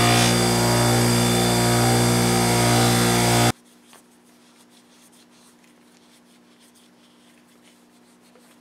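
Ryobi bench grinder running with a steady motor hum and a hiss as a knife blade is worked against its wheel, cutting off abruptly about three and a half seconds in. After that there is only faint rustling of a rag wiping polishing compound off the blade.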